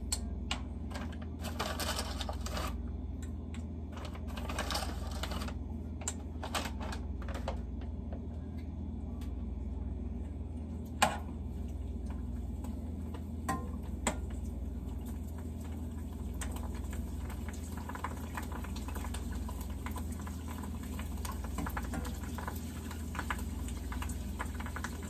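Lamb chops frying in a pan of oil and butter, with frequent clicks and scrapes of a utensil against the pan as the pieces are turned, one sharper click about eleven seconds in. A steady low hum runs underneath.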